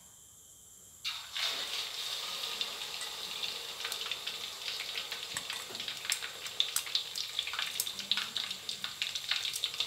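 Pieces of pla som (Thai sour fermented fish) going into a wok of hot oil about a second in, setting off a sudden sizzle that carries on as a steady deep-frying hiss full of crackling pops.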